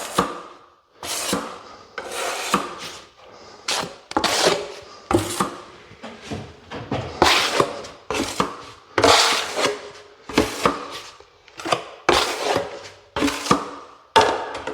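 Plastering trowel scraping and slapping quick-setting easy-fill filler about on a mixing board in repeated short strokes, about one or two a second. The compound is being knocked up to keep it live while it starts to set.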